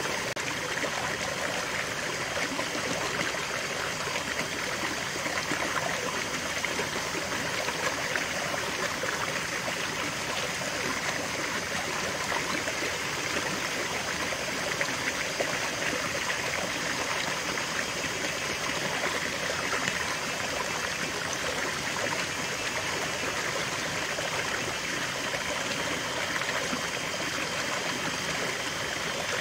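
Running water of a shallow rocky stream spilling over a small cascade between boulders into a pool, steady and unbroken.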